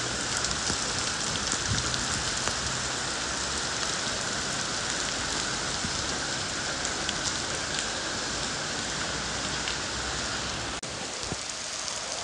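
Heavy downpour: a dense, steady hiss of rain with scattered sharper drop hits, broken by a brief dropout near the end.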